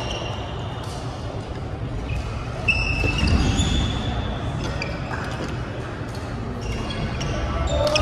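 Badminton doubles play on a wooden gym floor: sneakers squeaking in short high chirps and sharp clicks of rackets striking the shuttlecock, echoing in a large hall.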